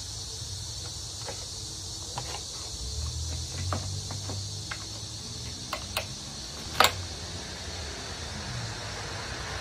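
Plastic stroller parts of a Chicco Activ3 being handled and fitted: scattered light clicks and knocks, with one sharp click about two-thirds of the way in. A low rumble runs underneath through the middle.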